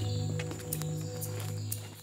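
Background music: sustained low notes with faint light ticks, fading out near the end.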